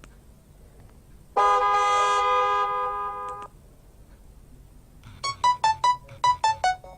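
Nokia 6280 ringtones: a single held synthesized chord lasting about two seconds and cutting off, then, about five seconds in, the next ringtone starts as a quick melody of short notes, about three or four a second.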